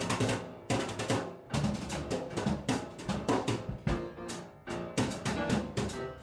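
Background music with a drum kit keeping a steady beat, about two strikes a second, under a pitched instrumental line.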